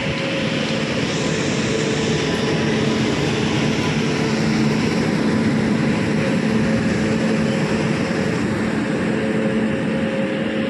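WAP-7 electric locomotive running at the platform: a loud, steady whir of its cooling blowers with a low, even hum, swelling slightly in the middle.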